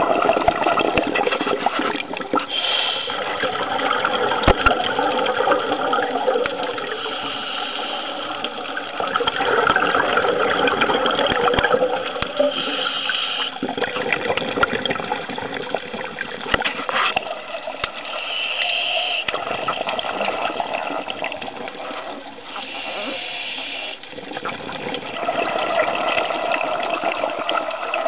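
Muffled rushing and bubbling of water picked up by an underwater camera, rising and falling in level.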